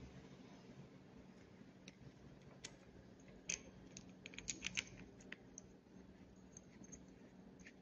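Faint small clicks and handling noise of fingers working an endoscopy camera head's cable, thin wires and small plastic connector, with a quick cluster of clicks about halfway through, over a faint steady hum.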